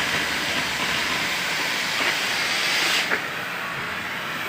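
Steady hiss of electric arc welding that stops abruptly about three seconds in.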